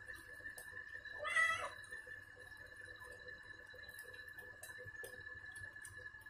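A wet domestic cat meows once, about a second in, a short call that rises and falls in pitch, while being lathered with shampoo during a bath.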